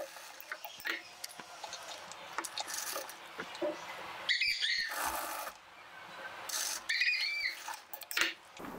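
Cloth rustling and light clicks as fabric pieces are handled and positioned at an industrial sewing machine, with two louder spells about four and seven seconds in.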